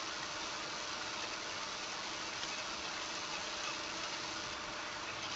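Steady hiss of background noise with a faint hum, unchanging, with no distinct events.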